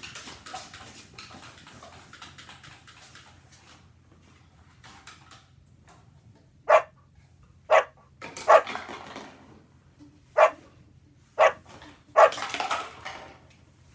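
Dog barking: six sharp barks about a second apart, starting about halfway through, after a few seconds of soft rustling.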